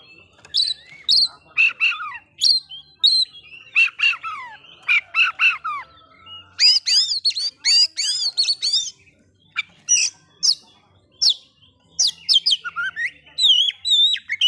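Oriental magpie-robin (kacer) singing a loud, varied song of sharp whistled notes, slurred calls and rapid trills, with a fast rippling trill in the middle.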